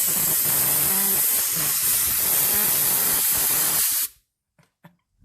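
A loud, steady spraying hiss that cuts off abruptly about four seconds in, followed by a few faint ticks.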